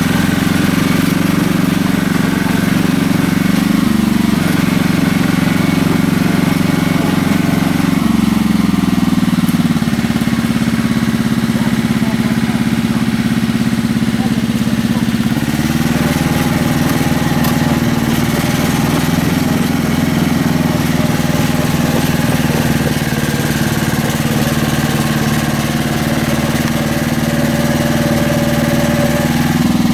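A small engine running steadily under load. Its note drops and lightens about eight to ten seconds in, then picks up again about fifteen and a half seconds in.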